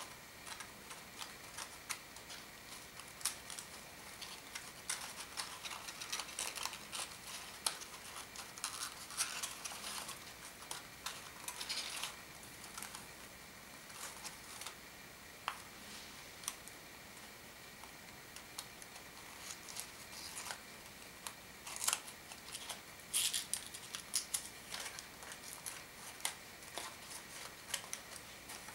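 Folded paper rustling and crinkling in irregular crackles as modular origami units are pressed and tucked together into a kusudama ball, with louder crackles about twelve seconds in and again near the end.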